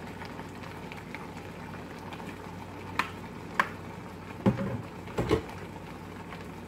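Onions, green pepper and garlic simmering in a skillet with olive oil, a steady low bubbling. Two sharp clicks come about three seconds in, then two louder knocks about a second apart.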